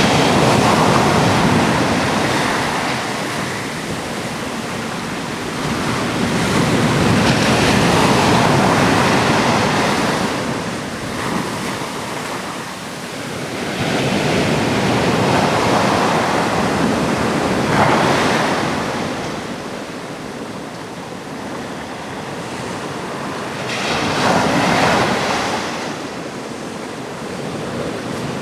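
Ocean surf breaking on a rocky coast: waves rush in and wash back in slow surges every few seconds, with some wind on the microphone.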